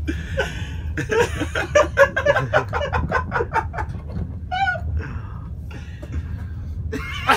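Hard, breathy laughter in quick pulses, with a short high-pitched squeal about four and a half seconds in. A steady low rumble of the moving train runs underneath.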